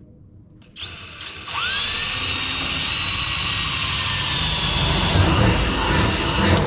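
Cordless drill spinning up and boring a small hole up through a metal roof panel overhead, a steady whine that starts about a second in and stops suddenly near the end.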